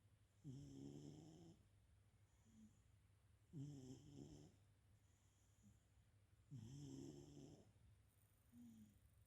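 Domestic cat snoring softly: three snores about three seconds apart, each lasting about a second, with a short quieter breath sound between them.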